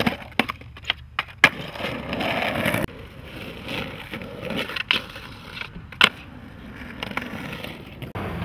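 Skateboard wheels rolling over rough concrete, with several sharp clacks of the board hitting the ground. The loudest clacks come about a second and a half in and again about six seconds in. The rolling sound stops abruptly about three seconds in and is quieter after that.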